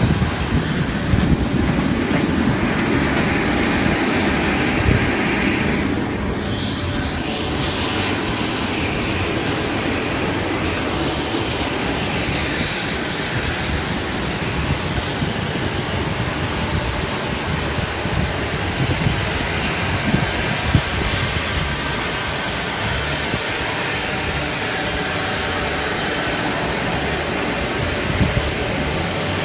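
Jet airliner on the apron: a steady high-pitched whine over a low rumble, the whine growing stronger about seven seconds in.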